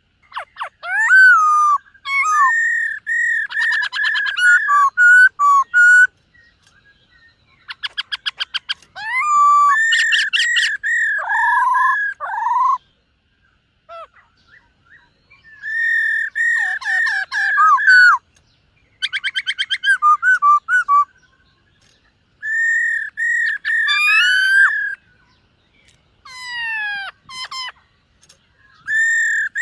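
Black-throated laughingthrush singing: bouts of clear, repeated whistled notes mixed with rapid rattling trills, each bout lasting a few seconds with short pauses between.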